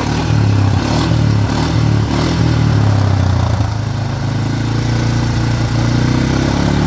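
Kymco Maxxer 250 quad's single-cylinder four-stroke engine idling steadily, its exhaust blowing through a rubber glove stretched over the tailpipe.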